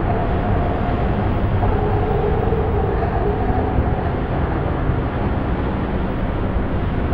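Dark ambient drone: a steady, dense low rumble like storm wind, with faint held tones drifting in and out above it.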